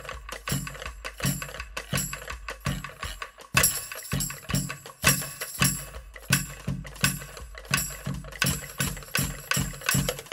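A group of drums beaten together in a steady, even rhythm of about two to three strokes a second.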